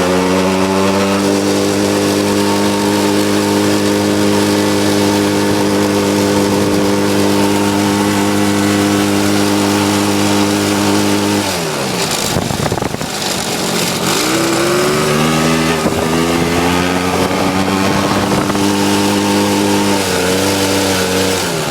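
49cc Cat-Eye pocket bike's small two-stroke engine running at a steady high idle. About halfway through its speed drops sharply and runs rough for a couple of seconds, then climbs back up and holds steady again.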